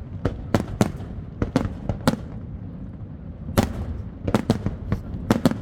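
Fireworks bursting: a quick run of sharp bangs, a pause of about a second and a half, then another tight volley.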